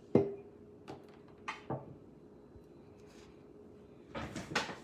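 A phone being handled as it is set up to film: a sharp knock right at the start, a few lighter taps, then a brief rustle near the end, over a faint steady hum.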